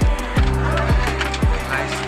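Background music with a hip-hop style beat: deep bass drum hits that drop in pitch, roughly twice a second, over held notes.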